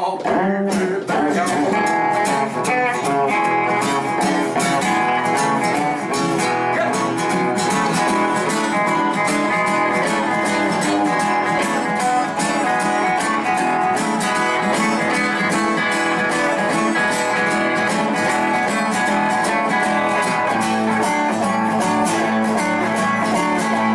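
Acoustic and electric guitars playing a song passage together without vocals, the acoustic strummed in a steady, even rhythm. A held note sounds over the strumming near the end.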